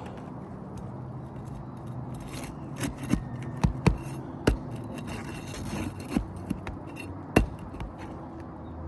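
Hand tool working under asphalt shingles to pull the roofing nails: a run of sharp metal clicks and scraping knocks, a handful of them between about three and seven and a half seconds in.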